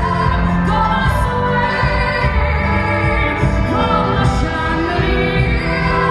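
Background music with a singing voice, a steady beat and held sung notes throughout.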